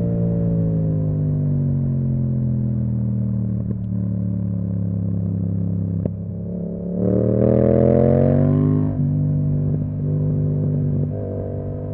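Yamaha MT-07's parallel-twin engine through an Akrapovic exhaust. The note falls slowly on a closed throttle. About seven seconds in it rises under acceleration, drops sharply at an upshift about nine seconds in, then holds steadier before dipping again near the end.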